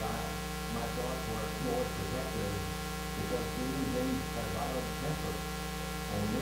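Steady electrical mains hum with a ladder of overtones, the loudest thing here, under faint, indistinct voices.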